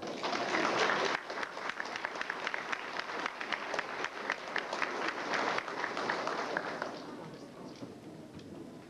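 Audience applauding, loudest in the first second or so and fading out about seven seconds in.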